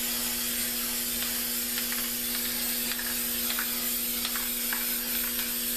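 Aerosol spray paint can hissing steadily as paint is sprayed onto a canvas, over a constant low hum.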